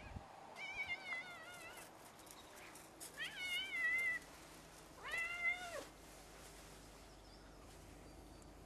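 Birman cat meowing three times, each call wavering in pitch; the second is the longest and loudest, and the third rises and falls.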